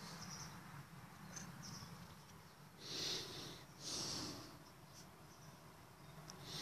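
Two short breathy snorts close to the microphone, about a second apart, over a steady low hum.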